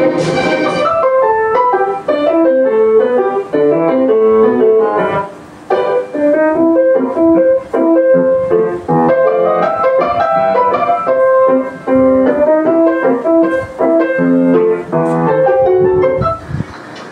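Background piano music: a melody of short, quick notes, with a brief pause about five seconds in.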